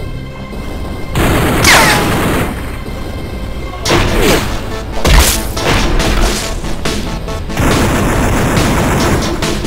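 Film gunfire sound effects: several heavy, booming pistol shots with falling ringing tails, over action music.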